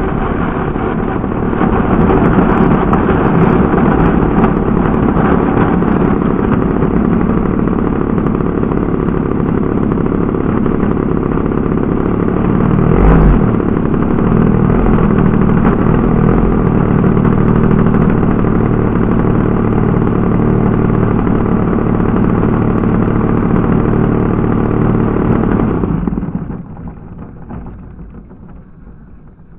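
Desert Aircraft DA-50 gas two-stroke engine of a quarter-scale RC Cub running steadily close to the onboard microphone as the plane rolls along the ground, with a single knock about halfway through. With about three seconds left the engine is shut off and the sound quickly dies away.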